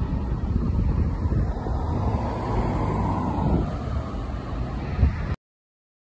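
Road traffic noise, with a vehicle passing in a swell between about one and a half and four seconds in, over a low rumble of wind on the microphone. The sound cuts off abruptly a little after five seconds.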